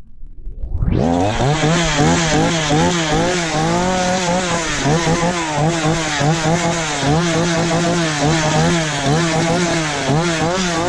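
Gas chainsaw running, its engine revved up and down over and over on the throttle. It comes up loud about a second in.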